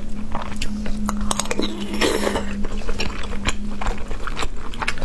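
A person chewing food close to the microphone: quick, wet mouth clicks and smacks, with a short louder rush of noise about two seconds in.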